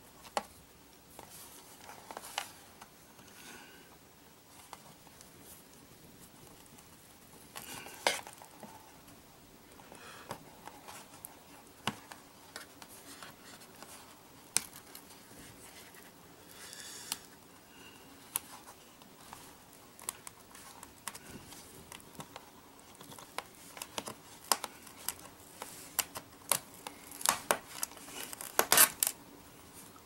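Scattered small clicks, taps and scratches of a precision screwdriver tip and fingers prying a sticky adhesive strip off the bottom of a laptop case. The clicks come more often and louder near the end.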